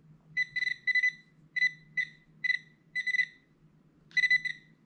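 Quest Scuba Tector Pro underwater metal detector giving its target tone: a dozen or so short, high beeps in irregular clusters as a brooch is passed in front of the coil, each beep sounding as the detector picks up the metal. A faint steady low hum sits underneath.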